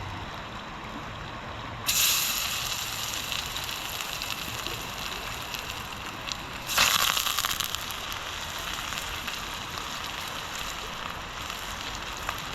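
Fish frying in hot oil in a small camping pot: a sudden loud sizzle about two seconds in as fish goes into the oil, a second burst of sizzle about seven seconds in, then steady frying hiss.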